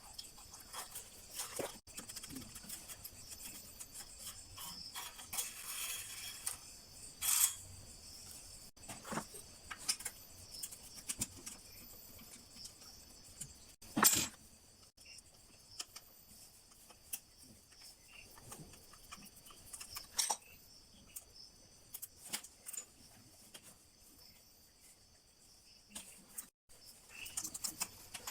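Scattered metallic clicks and clinks of tools and bicycle parts being handled during rear derailleur work, the loudest about halfway through. A steady high chirring of crickets runs underneath.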